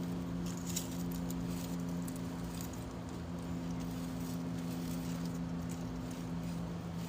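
A small pet licking and mouthing a metal object, making faint scattered wet clicks, over a steady low hum.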